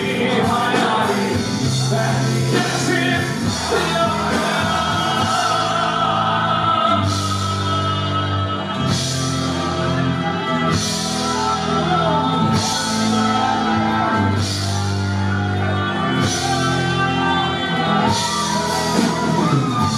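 Live Anatolian rock band playing, with a sung lead vocal over electric guitar and drums. From about seven seconds in, a cymbal crash lands roughly every two seconds.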